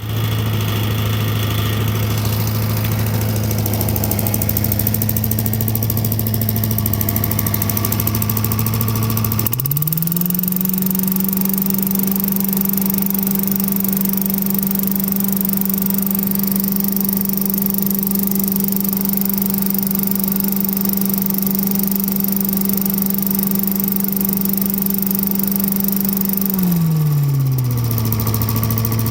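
Vintage Heckinger leaf vacuum's 5 hp Tecumseh TVS 120 single-cylinder engine running steadily at idle, then revving up about ten seconds in and holding at high speed for most of the time, before dropping back to idle near the end. It runs smoothly after a carburetor repair with a new inlet needle, seat and float.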